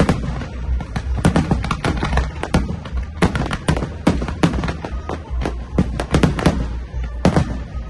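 Aerial fireworks shells bursting in a rapid, uneven barrage, several bangs a second, with music playing underneath.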